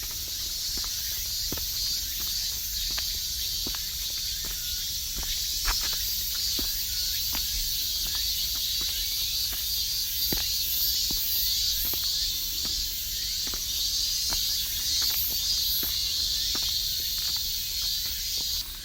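Cicadas singing in a steady, high-pitched chorus that cuts off suddenly near the end, with irregular light taps throughout.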